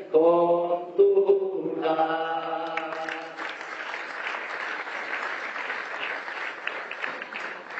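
A man sings the last line of an improvised Basque bertso verse unaccompanied, holding the final note. About three seconds in the audience breaks into applause, which runs on steadily.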